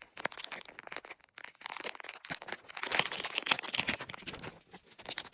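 Packaging being handled during unboxing: irregular crinkling and tearing of wrapping with many small crackles.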